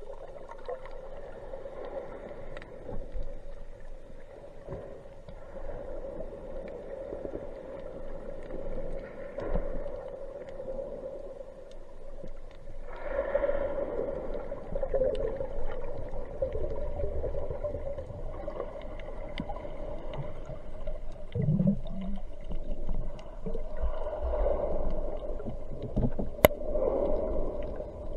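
Muffled underwater sound picked up by a submerged camera: a steady drone with water swirling around it, growing louder about halfway through, and a few sharp clicks.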